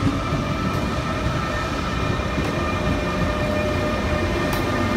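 Two ÖBB class 1116 Taurus electric locomotives hauling a passenger train slowly past: a steady electric whine in several tones over the low rumble of wheels on the rails.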